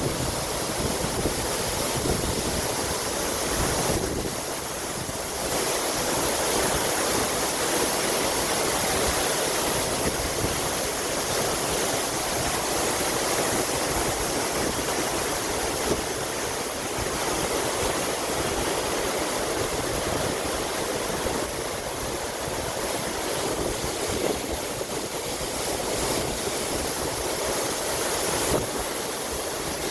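Ara Waterfall, a man-made waterfall, with water pouring down in a steady rush that dips slightly about four seconds in.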